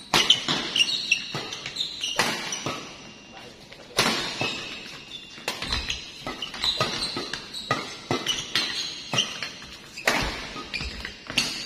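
Badminton rally: rackets striking the shuttlecock in sharp hits every second or two, with short high squeaks in between.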